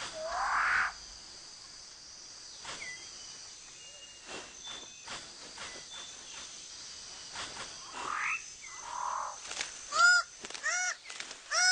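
New Guinea rainforest birds calling: a rising call at the start, scattered short whistles and clicks through the middle, then a loud run of repeated calls, about three a second, near the end.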